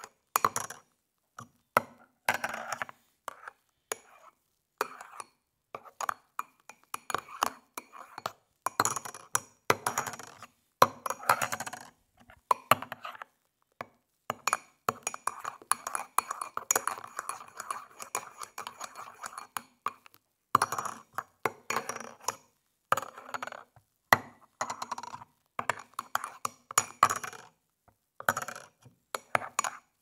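Spoon stirring coffee in a mug: irregular runs of clinking and scraping against the mug's sides, with short pauses between them.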